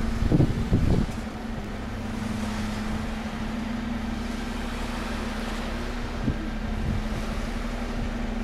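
A steady mechanical hum holding one pitch over a low rumble, with a few loud low thumps in the first second.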